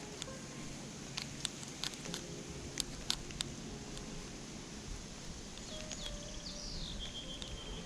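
Outdoor creek ambience with a few sharp clicks in the first half, then a small bird singing: falling whistled phrases from about six seconds in, ending in a short, even trill.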